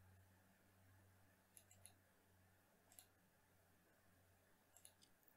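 Near silence with a steady low hum and a few faint computer-mouse clicks: a pair about one and a half seconds in, one about three seconds in, and another pair near the end.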